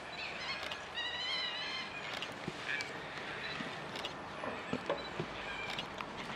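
High-pitched, wavering animal squeals, the longest lasting about a second, from a dhole pack's attack on a sambar deer and its fawn, followed by a shorter call and a few sharp scuffling knocks, over a steady background hum.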